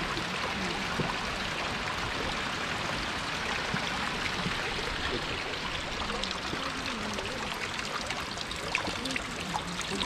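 Steady rushing of Nachi Falls, a 133 m waterfall, heard from near its base. In the second half, closer splashing and trickling of nearer running water comes through on top of it.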